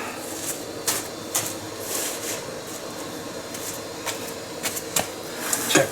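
Scattered light clicks and knocks of metal parts and hand tools being handled while a CVT clutch and housing are fitted loosely, over a steady background hum.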